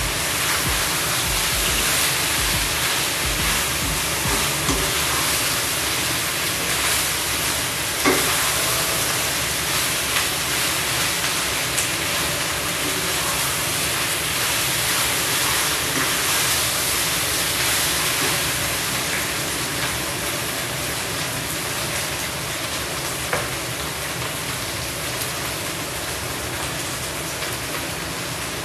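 Chicken and tofu sizzling as they stir-fry in a wok, a steady hiss, with a spatula knocking and scraping against the pan now and then.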